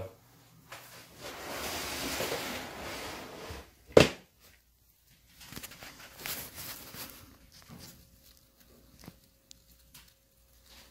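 Handling noises around a rodent breeding tub: a few seconds of soft rustling, then one sharp knock about four seconds in, followed by faint scattered rustles and small clicks.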